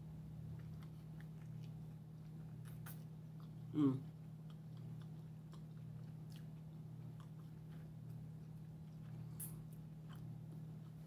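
A person chewing a mouthful of Reuben sandwich, with small mouth clicks and a brief voiced hum about four seconds in, over a steady low hum.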